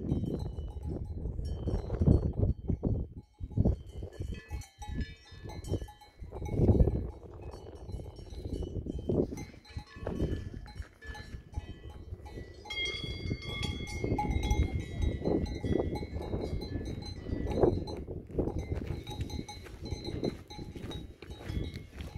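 Cowbells on grazing cattle ringing, several bells at once, clearest about halfway through. Uneven low rumbling surges sit under them and are louder than the bells.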